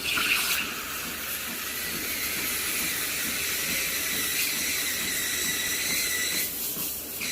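Electric grinder running at full speed: a steady high whine over a loud hiss, starting abruptly at the beginning.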